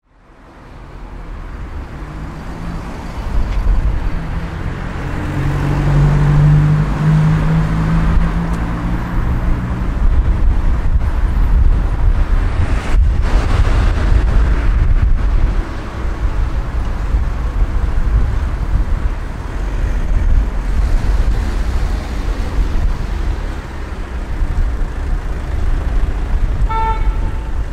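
Urban street traffic: cars passing with a steady low rumble, a heavier engine passing between about five and nine seconds in, and a brief horn toot near the end.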